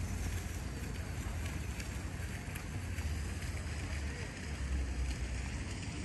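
Wind buffeting the microphone as a low, uneven rumble over a steady outdoor hiss.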